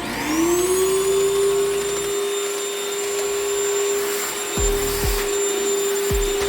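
Homemade workshop vacuum cleaner switched on: its motor spins up with a rising whine, then runs at a steady pitch. A few low thumps come in the second half.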